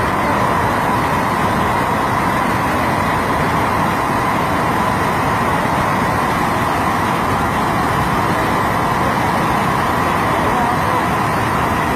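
Fast-flowing floodwater rushing in a steady, loud torrent.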